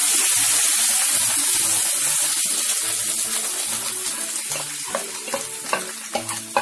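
Hot oil with cumin seeds sizzling loudly as boiled potatoes are tipped into the wok, the sizzle dying down gradually as the potatoes cool the oil. Near the end come sharp clicks of a spoon knocking and scraping against the pan.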